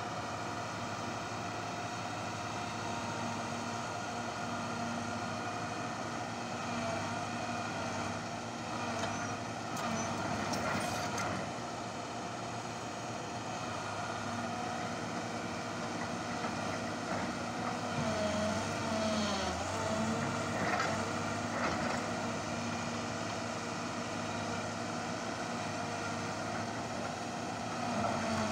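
Hitachi crawler excavator's diesel engine running steadily, its note dipping briefly a few times. A few short knocks come about ten seconds in.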